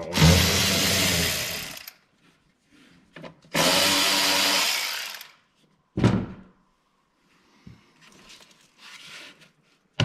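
Power driver with an 8mm socket running twice, about two seconds each, spinning loose the air intake hose clamp. Then a single sharp knock as the tool is set down.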